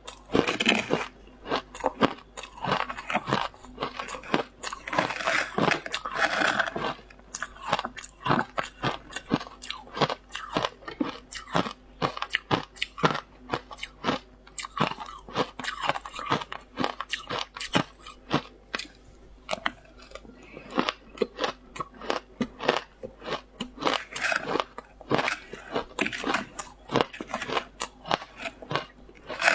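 Frozen matcha ice being bitten and chewed close up, crunching and cracking between the teeth several times a second without a pause.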